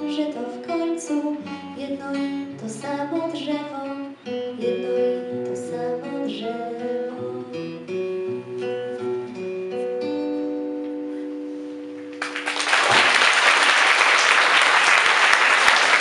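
Acoustic guitar picking the song's closing bars and ending on a held chord that fades away; about twelve seconds in, audience applause breaks out and carries on, louder than the music.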